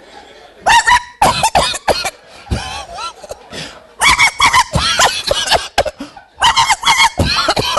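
A man's voice imitating dogs that have barked themselves hoarse: three runs of short, rasping, cough-like barks.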